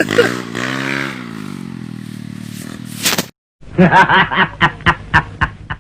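Trail motorcycle engine revving, its pitch swinging and then holding steady before it cuts off abruptly. After a short gap comes a burst of rhythmic laughter, about ten short bursts.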